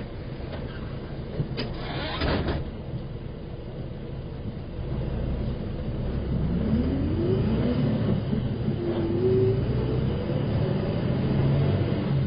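City bus pulling away from a stop, heard from inside the cabin: a short hiss of air about two seconds in, then the engine gets louder and its pitch rises as the bus accelerates, climbing again after a gear change.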